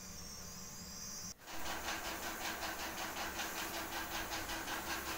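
Aluminium pressure cooker whistling: steam hissing out under the weight valve in rapid, even pulses with a steady tone, starting about a second in after a brief break. Before that, only a low steady hum.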